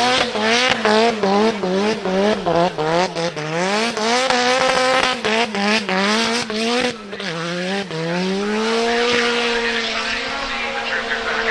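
Turbocharged Nissan SR20 four-cylinder engine in a Mazda RX-7 FD3S drift car during a burnout. The revs swing up and down about twice a second over the screech of spinning tyres. About eight seconds in, the engine pulls up and holds steady at high revs.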